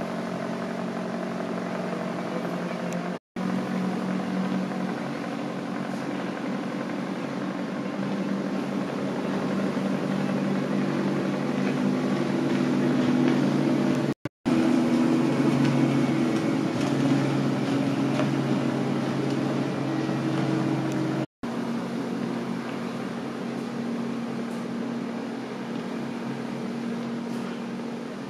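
Engine of an old shrimp trawler running as the boat motors past: a steady low drone that grows louder and shifts in pitch through the middle, then fades somewhat. The sound cuts out for an instant three times.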